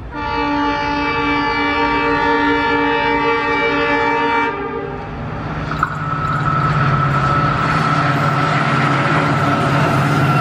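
An express train hauled by a WDP4 diesel locomotive sounds its horn at speed. A long multi-note blast lasts about four and a half seconds, then after a short gap a single high note is held for about five seconds. Under the horn, the low rumble of the locomotive and train running on the rails grows louder as it comes close.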